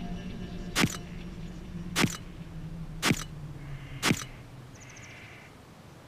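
Camera shutter clicks, four of them about a second apart, over a low steady tone that fades away.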